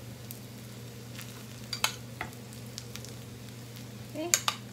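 Sticky-rice pancake and beaten egg sizzling gently in a frying pan over medium-low heat, with a few light clicks of a metal spoon against the pan as egg is spooned over the top.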